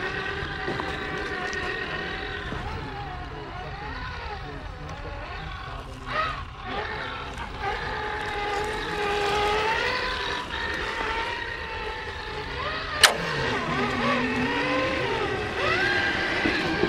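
Electric motors of RC scale crawler trucks whining, rising and falling in pitch as the throttle is worked, with one sharp knock past the middle.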